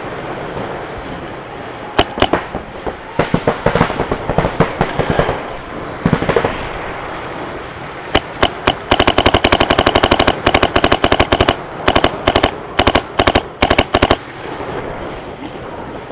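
Paintball markers firing rapid strings of shots, with a long, dense burst of fast fire about halfway through and shorter strings before and after.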